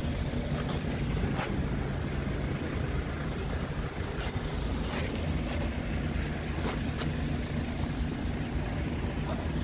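Low, steady rumble of an idling diesel truck engine, mixed with wind buffeting the microphone and a few light clicks.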